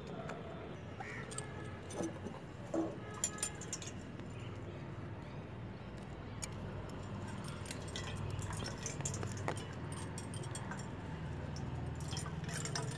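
Small clinks and rustles of a cloth bundle of grated ash gourd against a steel bowl in the first few seconds, then liquid trickling and dripping from the cloth into the bowl.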